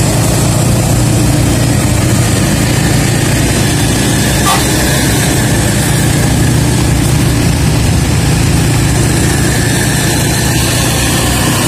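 Steady engine and road noise in moving traffic, from a diesel coach and a truck a few metres away. It holds an even low note throughout, with no break or change in pitch.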